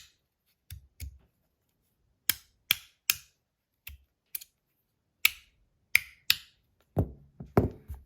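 Stainless steel Rapt fidget slider being slid back and forth, its strong magnet inserts snapping it shut with sharp clicks: about a dozen at irregular intervals, the two near the end heavier and deeper.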